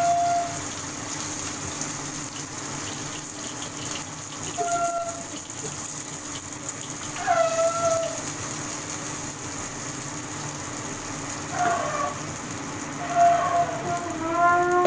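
Vegetable pieces frying in oil in a wok, a steady sizzling hiss. Short pitched whistle-like calls sound over it: once at the start, about five seconds in, a falling one about seven seconds in, and several overlapping ones near the end.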